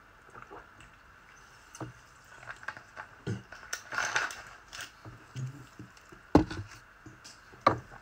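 Handling noise from a glass bottle after drinking: a string of small clicks and knocks, with two sharper knocks near the end.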